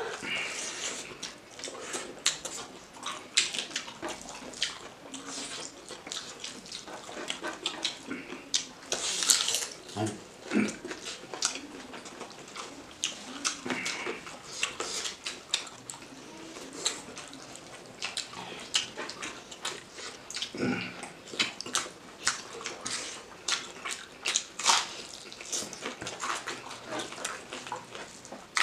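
Close-up eating sounds of rice and chicken curry eaten by hand: wet chewing and lip smacks in an irregular run of sharp clicks, with a few louder smacks or slurps.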